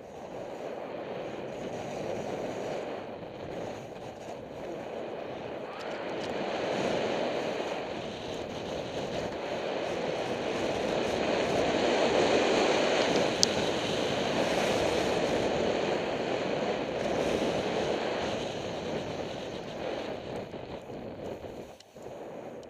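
Rushing wind on a skier's camera microphone mixed with the hiss of skis sliding on snow during a fast descent, building with speed and dying down near the end as the skier slows to a stop. A single sharp click about halfway through.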